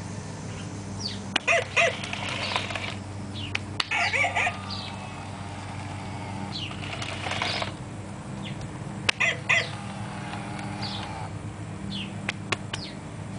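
Animatronic Halloween creature prop running: a steady electric motor hum, broken every few seconds by bursts of rattling and short high squeals as the head and jaw move.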